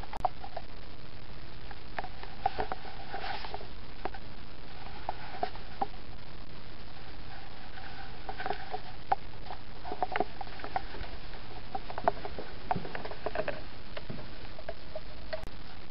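Steady hiss with scattered light clicks, taps and rustles, typical of a handheld camera being moved about.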